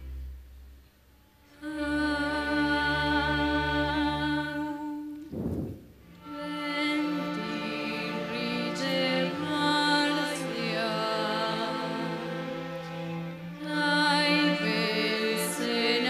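Youth string orchestra playing slow sustained chords with vibrato. The music nearly stops about a second in, comes back, breaks again briefly near the middle, and swells louder near the end.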